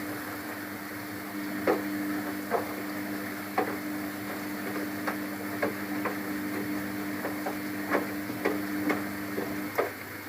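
Luxor WM 1042 washing machine in its rinse cycle: the drum motor hums steadily while the drum turns, with about a dozen irregular knocks as the load tumbles. The motor hum stops shortly before the end.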